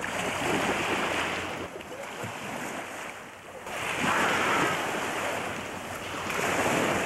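Small sea waves washing and lapping on a rocky shore, swelling and easing, with wind buffeting the microphone.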